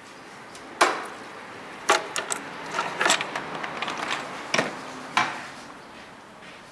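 Plastic timing-belt cover and its retaining clip on a car engine being worked loose by hand: a series of separate sharp clicks and clacks spread over several seconds.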